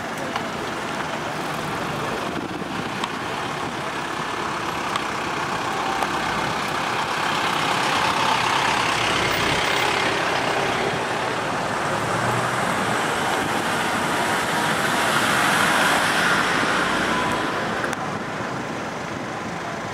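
Road traffic: cars passing with steady tyre and engine noise that swells as vehicles go by, about eight seconds in and again around sixteen seconds.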